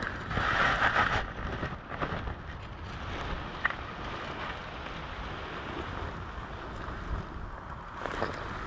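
Wind noise on the microphone: a steady rushing hiss, louder in the first second, with one short click a little under four seconds in.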